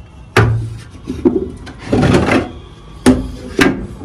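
Loose wooden planks being pulled off a wooden pigeon box and stacked on one another: wood scraping on wood, with three sharp knocks, one about a third of a second in and two close together near the end.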